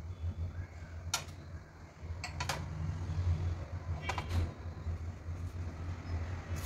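Small glass serving bowls set down on a steel thali plate: a few short light clinks, two of them close together about two and a half seconds in and a cluster about four seconds in, over a steady low hum.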